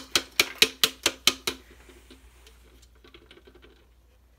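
A quick series of sharp taps or knocks, about five a second, each with a short ring, lasting about a second and a half, then fainter scattered clicks.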